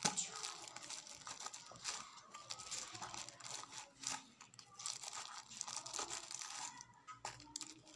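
A packet crinkling and rustling as it is handled, in quick irregular crackles.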